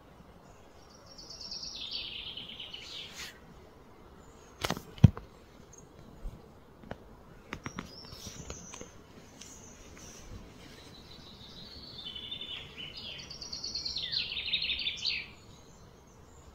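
A bird singing a fast, falling trill of rapidly repeated high notes twice, once about a second in and again near the end, over a steady background hiss. A few sharp clicks sound about five seconds in.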